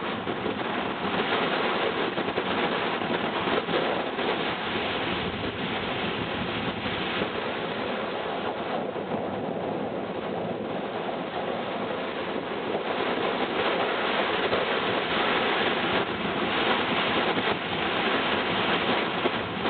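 Wind rushing and gusting over the microphone, mixed with the wash of waves breaking along the shore.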